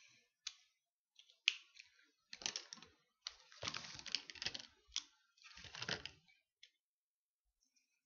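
Pens clattering against one another in bursts of rapid clicks, as a pen is picked out from among several, with a few single clicks before the bursts.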